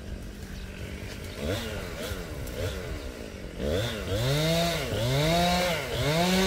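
Chainsaw running: idling at first, then revved up and down over and over, its pitch rising and falling about once a second. It grows louder from about halfway through.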